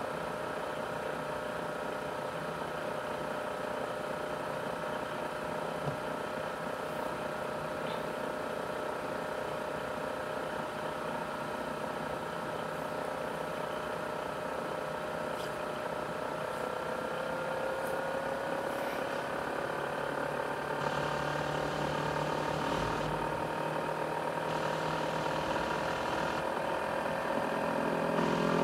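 ASUS X543UA laptop's CPU cooling fan running with a steady jet-engine-like whine made of several tones. About two-thirds of the way through the whine slides up in pitch and grows louder as the fan speeds up.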